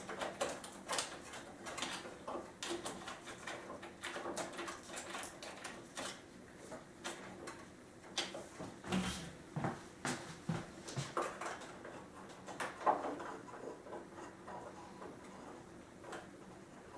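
Nuts on a wire rope clamp being tightened by hand with a tool, heard as quiet, irregular clicks and taps several times a second.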